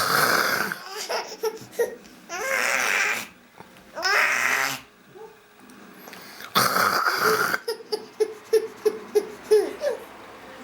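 A baby making rough, growling 'monster' noises in four loud bursts, followed by laughter in a quick run of short pulses, about three a second, near the end.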